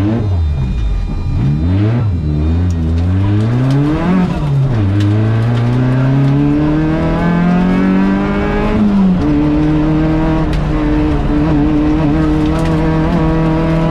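Rally car's engine heard from inside the cabin, its revs swinging quickly up and down, then climbing in one long pull. About nine seconds in the revs drop sharply, and the engine then holds a steady pitch.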